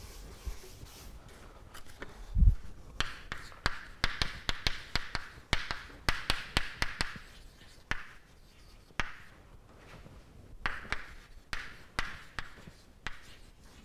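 Chalk writing on a chalkboard: a rapid, uneven run of sharp taps with short scratching strokes between them. There is a single dull low thump about two and a half seconds in, before the writing starts.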